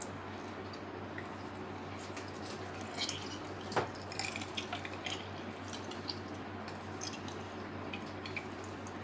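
Raw meat squelching as fingers press it down into the throat of a hand-cranked metal meat grinder, with a cluster of small wet smacks and clicks about three to five seconds in, over a steady low hum.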